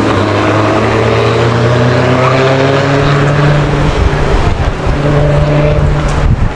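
A motor vehicle's engine running close by on a city street, its pitch drifting slowly upward as it pulls away. From about four seconds in, louder rough noise from road and traffic joins it.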